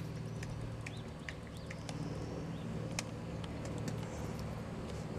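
Outdoor background noise: a steady low hum with scattered faint clicks and short high chirps.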